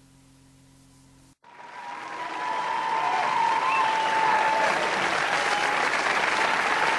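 Live theatre audience applauding, with whistles over it, swelling in about a second and a half in and then holding steady. Before it there is only faint tape hiss and hum.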